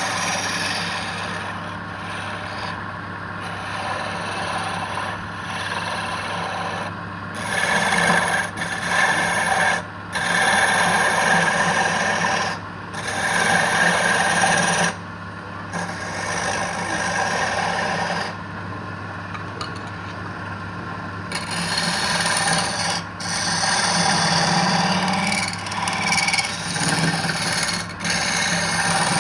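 Woodturning lathe running with a steady motor hum, while wood on the spinning piece is scraped in repeated passes of a second or two each.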